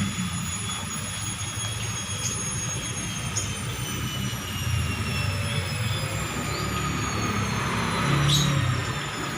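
Electrolux front-loading washing machine running, its motor and drum spinning with a high whine that slowly falls in pitch over a low rumble, with a few faint clicks.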